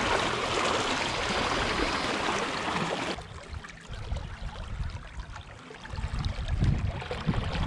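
Flowing river current rushing steadily. About three seconds in, it cuts off abruptly to a much quieter low rumble that swells in gusts near the end.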